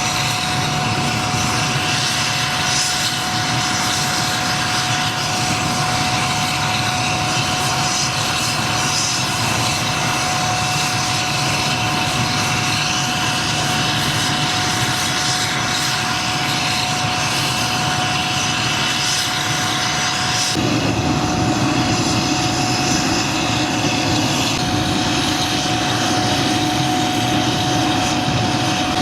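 Helicopter running steadily nearby, its engine and rotor sound carrying a constant high whine. About twenty seconds in, the sound changes abruptly: the whine drops out and a deeper steady drone takes over.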